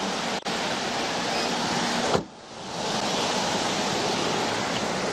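Steady static hiss on the dash-cam audio feed. It cuts out for an instant about half a second in, then drops away again about two seconds in and fades back up.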